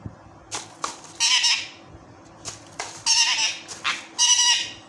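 Indian ringneck parakeet squawking three times, harsh rasping screeches each about half a second long, with short sharp clicks in between.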